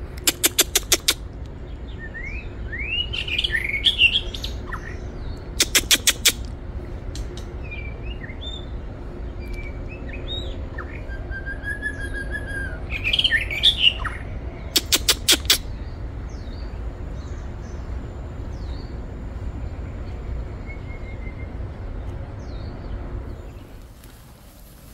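White-rumped shama singing: varied whistled phrases and short rising and falling notes, broken by a few short bursts of rapid, loud clicking. A steady low rumble runs underneath.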